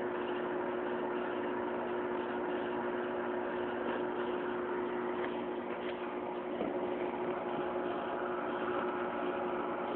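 Microwave oven running: a steady hum with a constant low drone.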